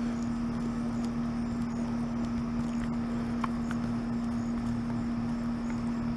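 A steady low hum holding one pitch over a noisy hiss, with a few faint ticks.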